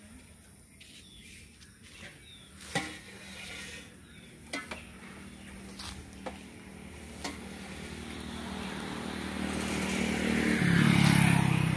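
A road vehicle approaching and passing close by, its engine and tyre noise building over several seconds to a loud peak near the end. A few scattered clicks come before it, over a steady low hum.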